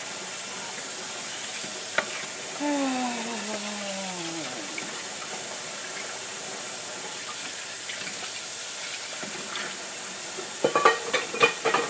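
Kitchen tap water running steadily into a sink, with a short falling voice-like tone about three seconds in. Dishes clink and knock several times near the end.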